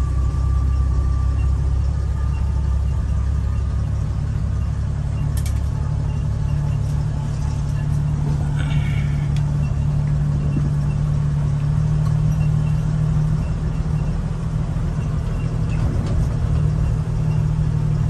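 1975 DJ5-D Postal Jeep's engine and drivetrain running on the move, heard from inside the cab as a steady low drone. A low hum strengthens about five seconds in and eases back a few seconds before the end.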